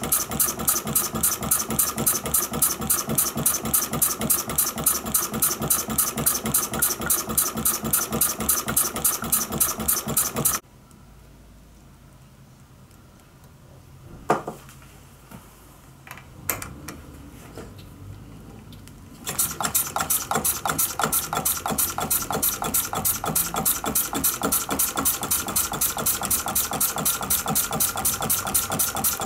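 Small horizontal true diesel model engine (20 mm bore, 40 mm stroke, running on kerosene and lamp oil) running steadily with an even, rapid beat. About ten seconds in the sound cuts off suddenly into a quiet stretch with a few light clicks, and about nineteen seconds in the same steady running beat comes back.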